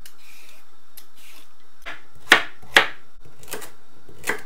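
Kitchen knife chopping carrots on a wooden chopping board: a few sharp knocks of the blade hitting the board, starting about two seconds in, the loudest two close together near the middle.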